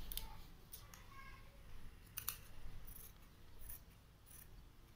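Scissors snipping through thin cloth: a string of short, separate cuts spread over several seconds.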